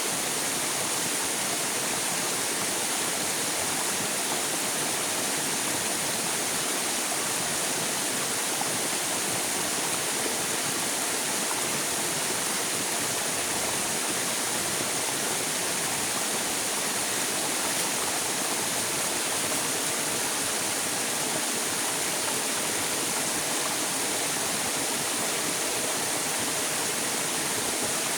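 River water rushing steadily, an even unbroken flow with no changes.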